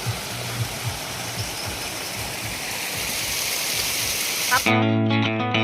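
Steady rush of falling water from a small waterfall, a constant hiss that grows slightly louder. Near the end it cuts abruptly to guitar music with a distorted electric-guitar sound.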